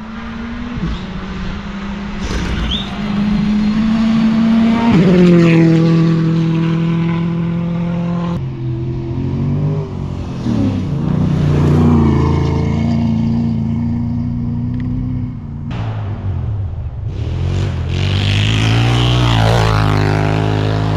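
Rally car engine on a sand stage, coming closer and passing at speed. Its pitch climbs and drops several times as it changes gear. Near the end a dirt-bike engine comes closer, rising in pitch.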